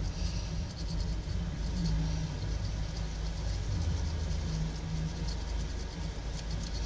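Faint, irregular scratching of a toothbrush scrubbing a phone's circuit board to clean off water damage, over a steady low rumble.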